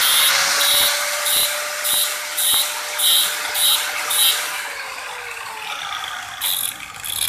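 Angle grinder grinding the edge of a steel disc-brake caliper bracket: the motor whines at a steady pitch while the disc bites the metal in rhythmic strokes about twice a second. The strokes ease off for a couple of seconds past the middle, then a few more come near the end, as the edges are finished smooth.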